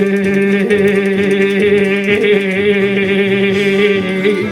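The song's final sung note, 'mi', held long and steady in pitch over the backing music, stopping near the end.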